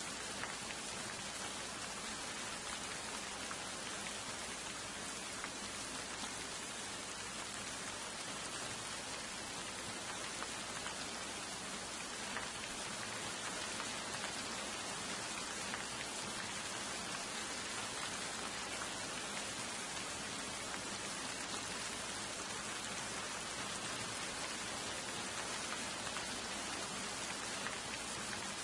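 Steady rain falling on the surface of a pond: an even hiss of many drops landing on water.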